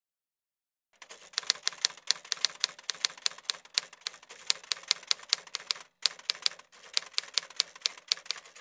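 Typewriter keys clacking in a rapid, uneven run of sharp strikes, starting about a second in and broken by a couple of short pauses.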